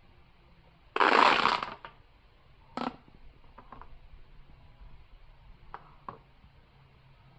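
A loud, rough burst of noise lasting about a second, starting about a second in, then a much shorter burst near three seconds, with a few faint clicks after.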